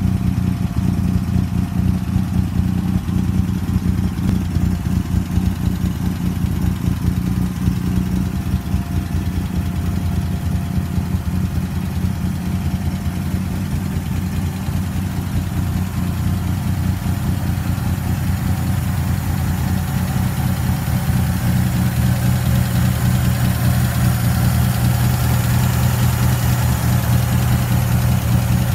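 A 1941 Plymouth pickup's engine, fitted with twin carburetors, idling steadily with no revving. From about twenty seconds in it is heard up close at the open engine bay, with more intake hiss and valvetrain clatter.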